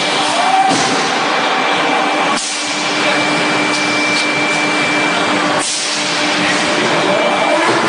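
Steady, loud hissing machinery noise of an automatic forging line, like compressed air, with a steady hum under it. The noise shifts abruptly about three times.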